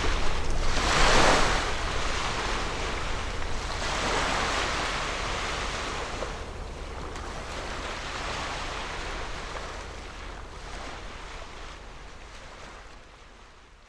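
Waves washing against a rock embankment in several surges, the loudest about a second in, over a low wind rumble on the microphone; the sound fades steadily toward the end.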